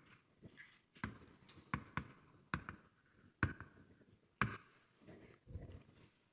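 Chalk writing on a blackboard: a string of sharp taps and short scratchy strokes, irregularly spaced, as a formula is written out.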